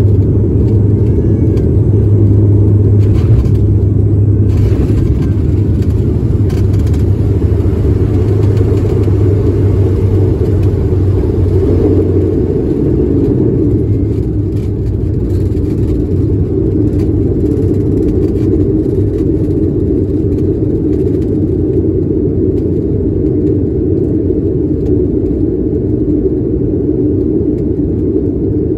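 Loud, steady rumble heard inside an airliner's cabin as it rolls along the runway on its main landing gear. The deepest part of the rumble fades about twelve seconds in and the noise eases a little, as when the aircraft slows.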